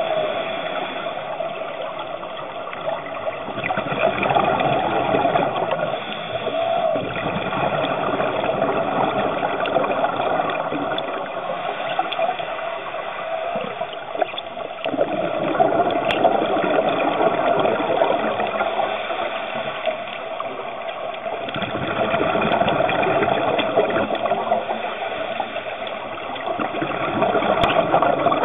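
Underwater scuba breathing: the hiss of a diver's regulator and the bubbling of exhaled air, swelling and fading every several seconds over a steady watery rush.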